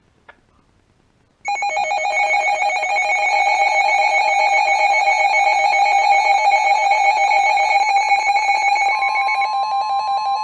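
Weather radio receiver's alert alarm sounding a loud, fast-warbling electronic tone, starting about a second and a half in and running for about nine seconds. It signals an incoming severe thunderstorm warning. Near the end the broadcast's steady single-pitch warning alert tone comes in under it.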